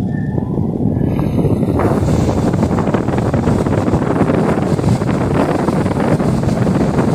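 A Ventisol 60 cm wall fan running, its airflow buffeting the microphone as a loud, steady rush of wind noise that builds over the first couple of seconds.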